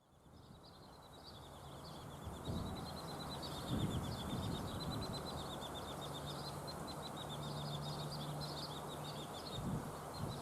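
A songbird singing a long run of quick, high chirps, with low rumbles of wind on the microphone and a faint steady low hum in the middle.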